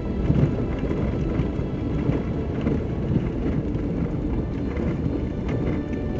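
Vehicle driving over a rough dirt track, heard from inside: a steady low rumble of engine and road noise with irregular knocks and rattles.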